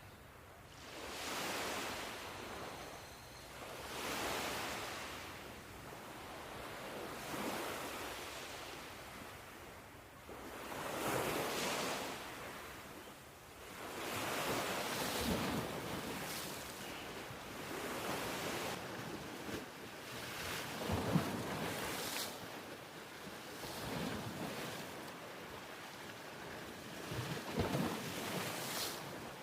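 Ocean surf: waves breaking and washing in, one swell every few seconds.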